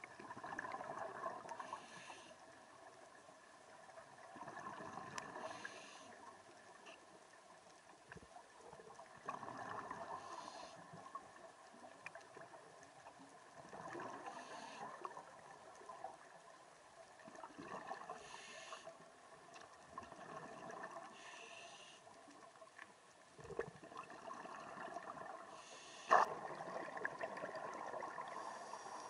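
Scuba diver breathing through a regulator, recorded underwater: bursts of exhaled bubbles gurgling about every four seconds, each followed by a brief hiss of the regulator on the inhale.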